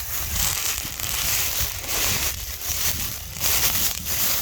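Footsteps crunching and rustling through dry leaf litter and brush, in repeated bursts about once a second, over a low rumble.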